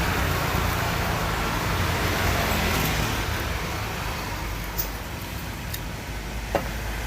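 Steady low rumble of background road traffic, easing slightly after the middle, with a few short clicks near the end.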